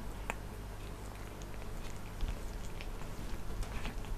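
A black cat grooming itself: its tongue licking its fur in a run of small, soft wet clicks, over a steady low hum.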